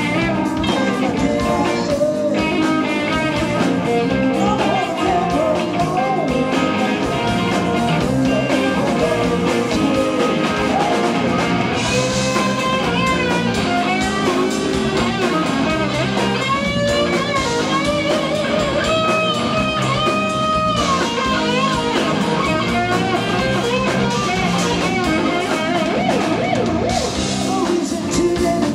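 Live rock band playing: an electric Sky Guitar carries the lead with bent and sustained notes over a drum kit and bass.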